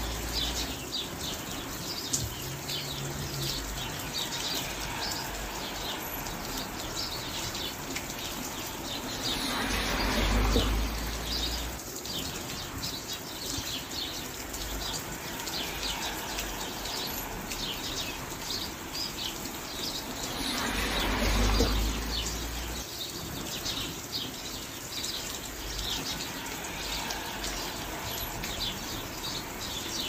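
Steady rain with many small birds chirping over it. The rain swells louder, with a low rumble, about ten seconds in and again about twenty-one seconds in.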